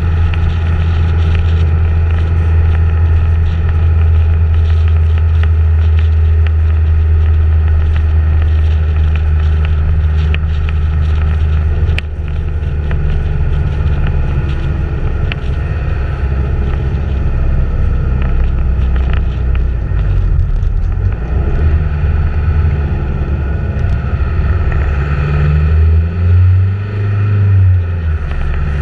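Engine of a vehicle following the cyclists, a steady low drone. Its pitch shifts about twenty seconds in, then rises and falls again near the end as the vehicle takes a bend and picks up speed.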